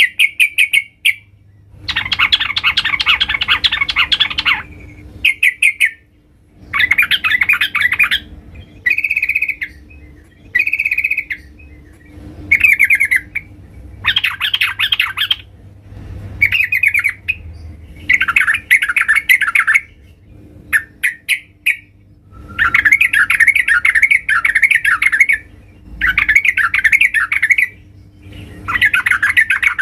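Yellow-vented bulbul (trucukan) giving loud bursts of rapid chattering calls, each a second or two long with short pauses between, over and over. The calls are billed as a female calling for a male.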